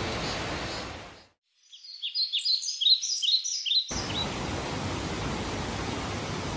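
Background music fading out, then a small bird chirping in a quick run of short, high, falling notes for about two seconds. From about four seconds in, a steady rush of a mountain stream.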